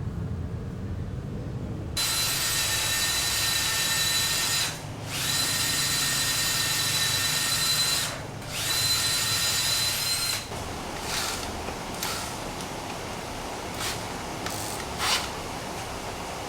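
A power tool running with a high whine in three stretches, separated by two short pauses, then stopping. A few scattered clicks and knocks follow.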